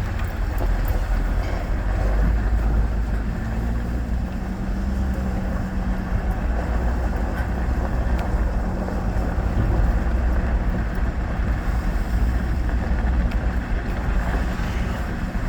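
Truck driving slowly on a gravel road, heard from inside the cab: a steady low engine rumble and hum with tyre noise.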